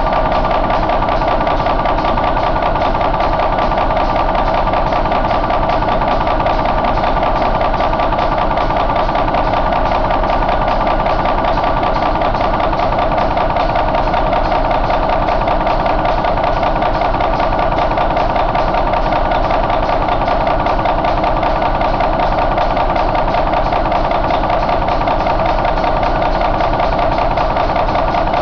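Cummins N14 CELECT+ inline-six diesel engine idling steadily, with no change in speed.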